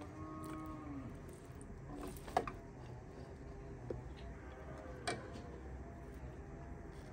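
A cow lowing once, an arching call about a second long, with fainter calls later on. A metal ladle clinks against the iron wok a few times.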